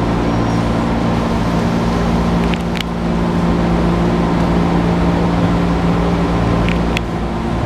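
Running sound inside a 205-series 1000-subseries electric commuter train car: a steady low hum from the car's equipment over a constant rumble. A couple of short sharp clicks come a few seconds apart.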